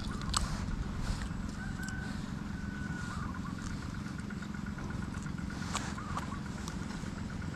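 A small engine running steadily at idle, with a few sharp clicks from pliers working a hook out of a fish's mouth and a couple of brief bird chirps.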